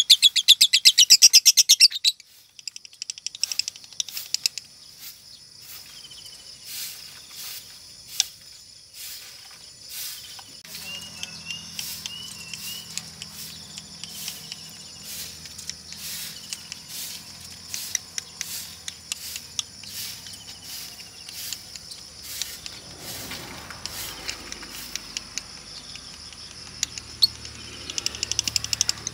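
Female lovebird giving a loud, rapid, high chattering trill for about the first two seconds. A long quieter stretch of scattered chirps and clicks follows, and the trill starts again near the end. The keeper presents this singing as a sign of a 'konslet' female.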